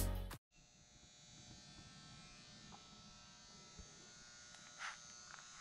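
Background music cuts off half a second in, leaving a faint steady electrical buzz of room tone. A soft knock and a brief rustle come near the end.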